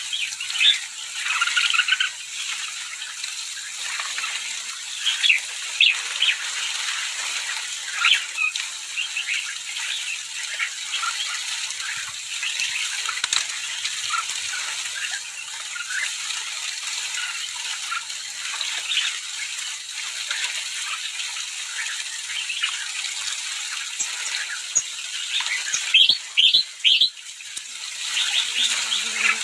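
A large flock of sooty-headed bulbuls calling over one another in a dense stream of short chirps while they bathe, with a burst of louder calls near the end.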